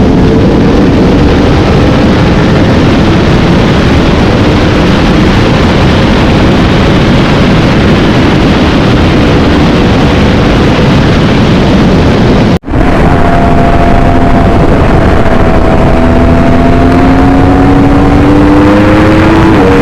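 Yamaha R1 crossplane inline-four engine running while the bike is ridden, under a steady rush of wind noise. The engine pitch climbs slowly in the second half and drops sharply near the end, as at a gear change. The sound cuts out for an instant about two-thirds of the way through.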